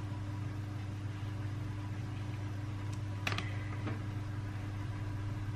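A steady low hum, with a single sharp click about three seconds in.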